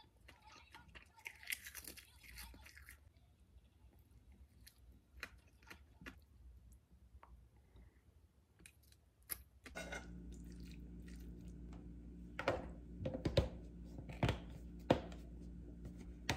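Quiet eating sounds: chewing and utensils against a ceramic bowl. Then a steady low hum starts, with a run of sharp plastic clicks as a lid is pressed down onto a plastic food container.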